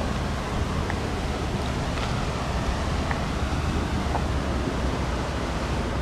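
Steady wind buffeting the microphone: a low rumble under a broad hiss, with a few faint clicks.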